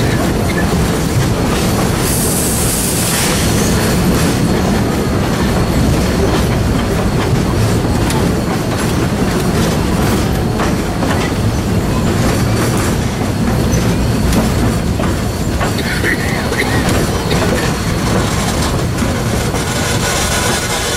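Narrow-gauge steam train rolling, heard from an open passenger car: a steady rumble with wheels clattering on the track, and a brief high hiss about two seconds in.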